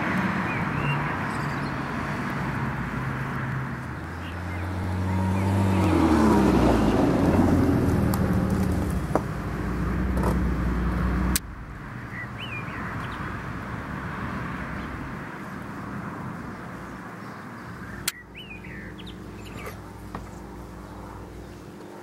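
A road vehicle's engine and tyre noise swells and stays loud, then cuts off suddenly about halfway through. After that a quieter steady background remains, with a few short bird chirps and a single click.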